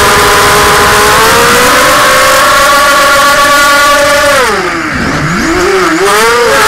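Multirotor drone's motors and propellers whining steadily, heard from the onboard camera over rushing wind. About four seconds in the pitch falls steeply as the throttle is cut with the craft inverted, then climbs back up near the end.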